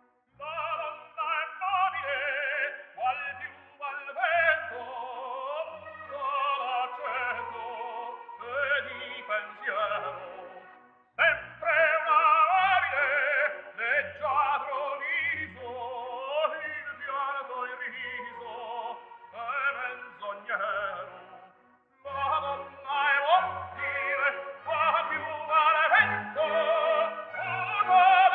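Operatic singing with a strong vibrato over music with a regular low pulse, broken off twice briefly.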